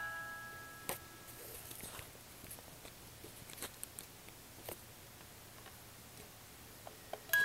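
A Schmid wind-up music box stops playing, its last plucked comb notes ringing out for about a second. After that come only faint, scattered small clicks and taps from handling the wooden toy.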